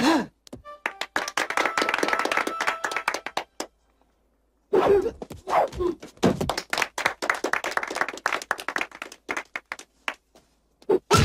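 Movie fight sound effects: repeated thuds and smacks of blows landing, with a dense patter like clapping and voices crying out. The sound drops out completely for about a second a third of the way through.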